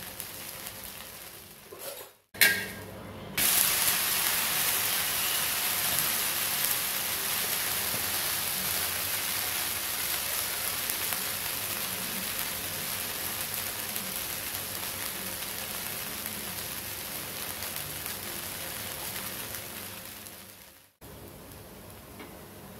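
Wheat dosa batter sizzling on a hot dosa tawa, a steady frying hiss. A short click comes about two seconds in, then the sizzle turns loud and slowly eases off, cutting out near the end.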